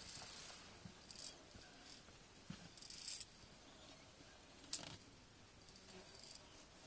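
Faint scrapes and rustles of climbers' clothing and harness gear moving over rock, a few short rasps a second or so apart, with one sharp click about two-thirds of the way through.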